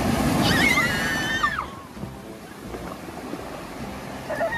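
Surf washing in over the stones of a rocky shore, loudest in the first second and a half, then settling to a steady wash. A child's high-pitched voice calls out over the wave near the start, falling away after about a second.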